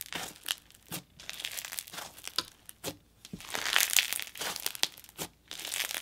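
Bead slime full of small iridescent beads being squeezed and pressed by hand: an irregular run of crunching crackles and pops, with a denser stretch of crackling a little past halfway.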